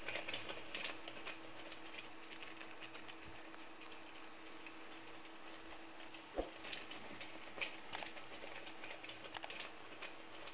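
Thick tomato sauce simmering in a steel pan, bubbling and popping in a steady patter of small crackles over a steady hum. A few sharper knocks of a steel spoon against the pan come in the second half.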